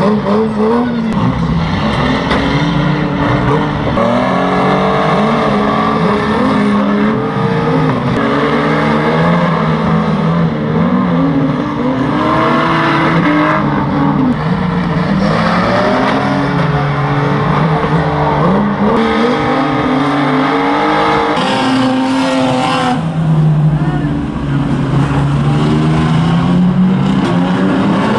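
Engines of several old banger race cars revving together, their pitches rising and falling over one another as the cars accelerate and lift off.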